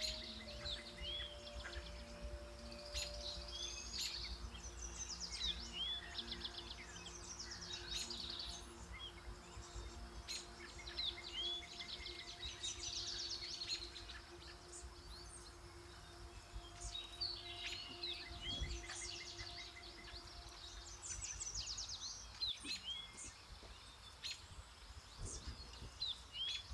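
Small songbirds chirping and singing in quick, repeated phrases over a faint low rumble, with soft held low tones underneath that fade out a little before the end.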